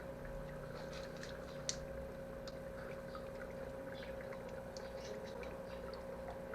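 Small electric air pump humming steadily while a T-connector air-lift pump bubbles water up its pipe, with scattered small drips and bubble pops.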